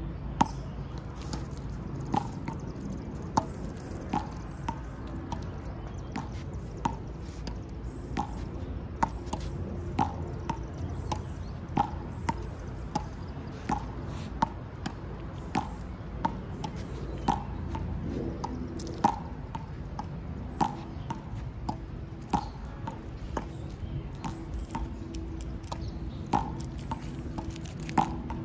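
Sharp clicking knocks, each with a short ringing ping, at irregular intervals of roughly one a second, over a steady low hum.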